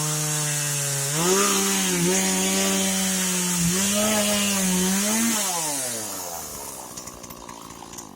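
Small two-stroke chainsaw running at high revs in black locust wood; about a second in, its pitch jumps up as it runs free at full throttle, dipping briefly twice. After about five seconds the throttle is released and the engine note slides down and fades away.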